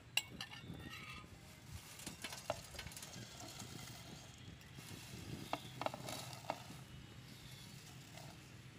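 Dry vermicelli strands sliding and being pushed by hand from a plate into a nonstick pan, rustling and crackling, with several sharp clicks as the brittle sticks snap or hit the pan.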